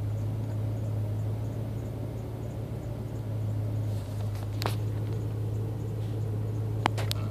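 Steady low hum of a truck idling, heard from inside the cab. One short soft sound comes about two-thirds of the way through, and a few quick sharp clicks near the end.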